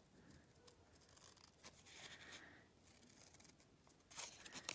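Faint snipping of small, sharp paper snips cutting out a shape from paper, quiet scattered clicks with a light paper rustle, a few more distinct snips near the end.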